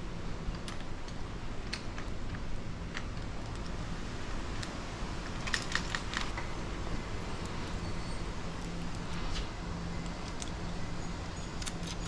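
Scattered light metallic clicks and taps of bolts and nuts being fitted by hand into a dirt bike's handlebar clamp, with a quick run of clicks about halfway through, over a steady low hum.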